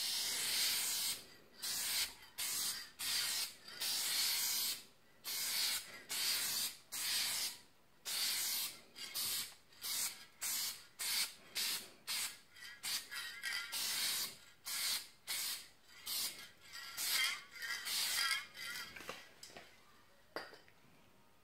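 Aerosol rattle can spraying silver metallic base colour in many short hissing bursts, more than one a second, with a few longer passes: a light first coat being blended onto a repaired aluminium car hood. A single click near the end.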